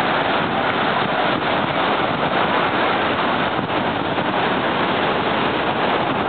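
Waves breaking on a sandy beach mixed with wind buffeting the microphone, a steady rushing noise.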